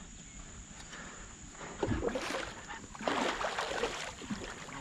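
Hooked muskie thrashing at the water's surface, making two short bouts of splashing about a second apart.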